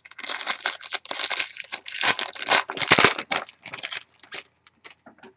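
Foil wrapper of a trading card pack being torn open and crinkled, loudest in the middle and tapering off about four seconds in.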